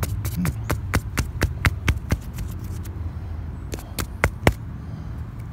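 A wooden stick digging and prying in loose rock rubble, making rapid sharp clicks of stone chips at about six a second. After about three seconds it slows to a few scattered clicks, over a steady low rumble.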